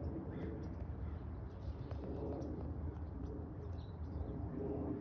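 Soft, low bird calls twice, with faint light ticks.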